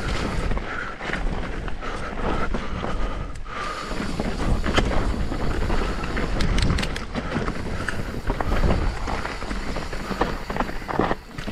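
Mountain bike being ridden down a rough, rocky trail, heard from a chest-mounted camera: tyres rolling over dirt and rock with frequent knocks and rattles from the bike, and wind on the microphone.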